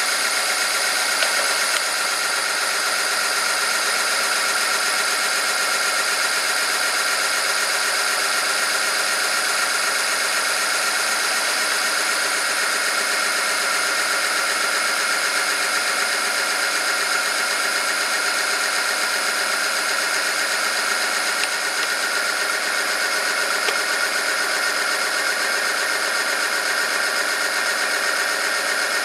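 Oil film strength test machine running steadily: its electric motor drives a rotating roller rubbing against a metal test sample in a cup of 5W-30 engine oil heated to about 100 °C, a continuous whine with many fixed tones.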